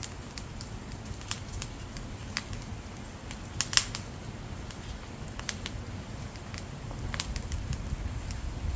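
Dry split firewood burning, crackling with scattered sharp pops, the loudest about four seconds in, over a low rumble of flame that grows louder near the end.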